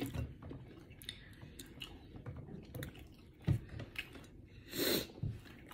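Close-miked chewing and mouth sounds of a person eating with chopsticks, with scattered small clicks and a sharper knock about three and a half seconds in. A brief louder noise comes near the end.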